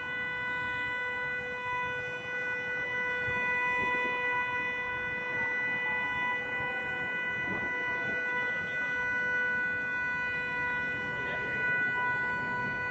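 A continuous tone held on one unchanging pitch, over low background noise with a few faint knocks.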